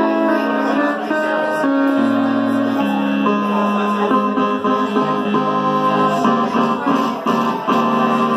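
Electronic keyboard played live: held chords that change about once a second.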